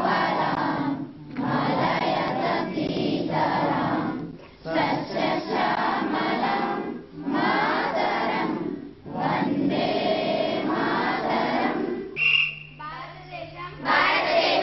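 A chorus of schoolchildren's voices in unison, going phrase by phrase with short breaks between lines.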